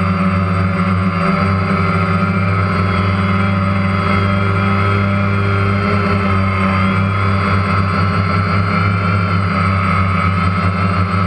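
Multirotor drone motors and propellers running with a steady hum and whine, picked up close by the camera the drone carries.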